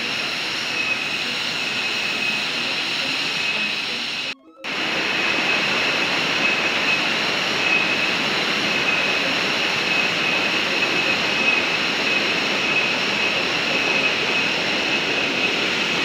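Waterfall and stream water rushing with a steady roar, with a steady high-pitched whine above it. The sound cuts out for a split second about four and a half seconds in.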